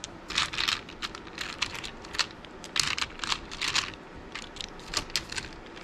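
Small round resin beads clicking and clattering against each other in a plastic basket as a hand rakes through them, a quick irregular patter of clicks.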